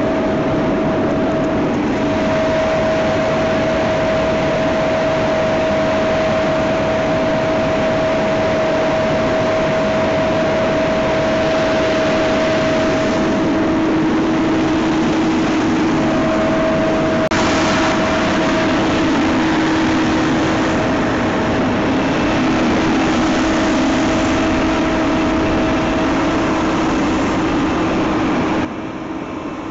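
Loud, steady engine and road noise of a moving fire engine heard from its cab, with a steady hum holding one pitch. The noise drops off suddenly about a second before the end.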